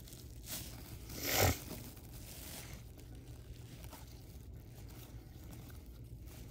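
1992 Upper Deck football cards sliding and rasping against one another as a stack is thumbed through by hand, with a short rasp about half a second in and a louder one about a second and a half in, then only faint rubbing.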